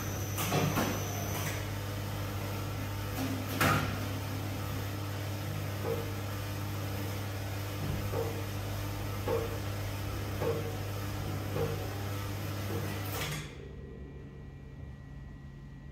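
FKY-500 dough cutting and rounding machine running with a steady hum. Soft knocks come about once every second and a bit, with a louder knock about four seconds in. The motor stops about thirteen seconds in.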